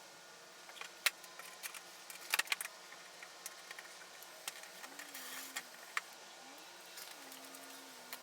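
Irregular light clicks and metallic clinks of hand tools and fasteners during work on a car's underbody panels and trim, with a faint wavering hum in the second half.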